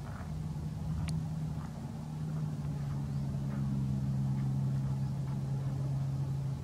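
Steady low engine hum, growing louder and settling to a lower, steadier pitch about three seconds in, with one sharp click about a second in.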